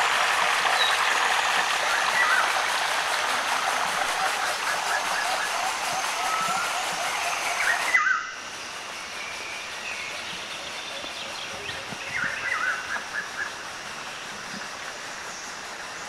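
Water pouring steadily from a hollow-log flume, with small birds chirping over it. About halfway through, the sound cuts to a much quieter woodland background with birds calling.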